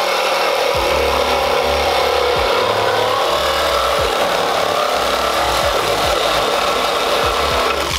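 Corded reciprocating saw running steadily as it cuts at a metal mount, with a blade that the operator says is making no headway. The saw stops shortly before the end.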